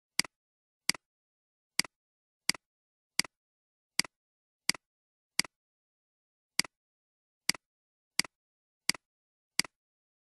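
Computer mouse button clicked repeatedly, about thirteen sharp clicks roughly two-thirds of a second apart, each followed closely by a softer release click.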